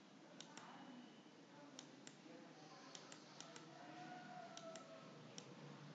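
Near silence, with faint scattered clicks of a stylus tapping on a tablet as handwriting is added to a slide.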